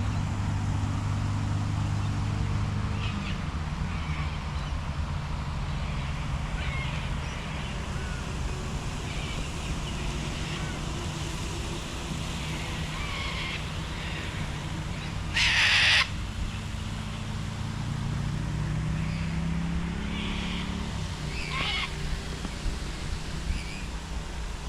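Steady hiss of rain with birds calling here and there, and one loud, short call about two-thirds of the way through. A low engine hum from a passing vehicle is heard at the start and again later.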